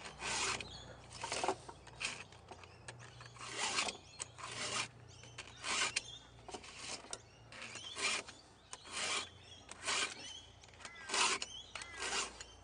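Stihl hand file-guide sharpener rasping across the cutters of a chainsaw chain, one push stroke about every second, about a dozen strokes in all. The guide files the tooth with a round file and takes the raker down with a flat file in the same stroke.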